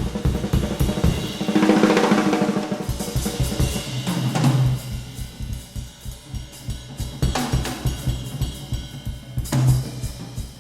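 Jazz drum kit playing a busy passage of snare, bass drum, hi-hat and cymbals, heard on a cassette tape of an FM radio broadcast of a live quartet.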